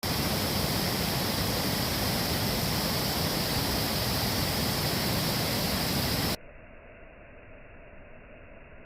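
Waterfall water rushing, a loud, steady hiss. About six seconds in it cuts off abruptly to a much fainter, duller hiss.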